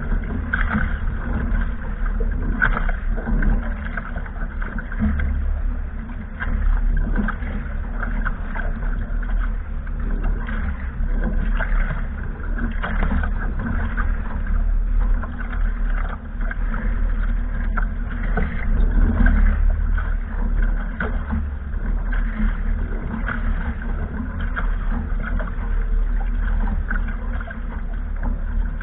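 Wind rumbling on the microphone and water splashing and rushing along a sailing catamaran's hull as it moves under sail.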